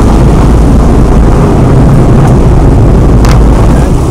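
Heavy wind buffeting the microphone on the open back deck of a moving boat: a loud, steady low rumble, with the boat's engine and rushing water underneath. A short sharp sound cuts through about three seconds in.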